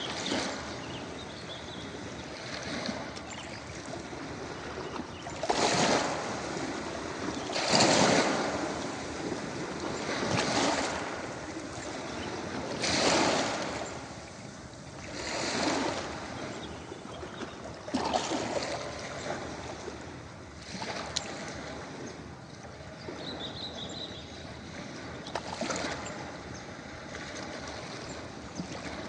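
Ocean waves breaking on a beach, a surge of surf every two to three seconds. The surges are biggest through the middle and give way to a gentler, steadier wash near the end.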